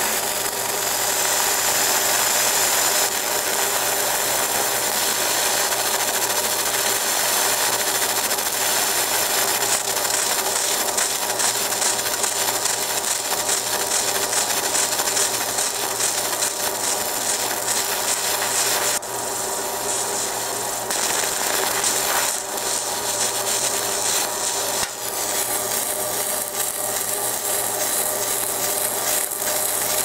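Fiber laser engraving deep into a metal buckle: a steady hissing crackle as the beam ablates the metal, over a low steady hum, the texture shifting a few times as the beam's pass changes.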